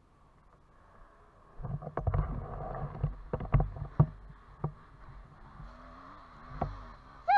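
Camera being handled and moved: rumbling rubs and a series of sharp knocks against the microphone, starting about a second and a half in. Near the end a faint, wavering distant dirt-bike engine can be heard.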